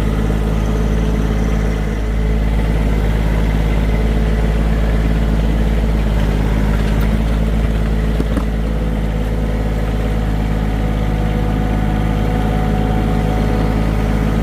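John Deere 1023E compact tractor's three-cylinder diesel engine running steadily.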